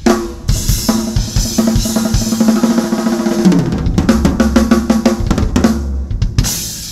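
Drum kit played hard and fast, snare, bass drum and cymbals together over a backing music track. A last cymbal hit about six and a half seconds in rings away as the playing stops.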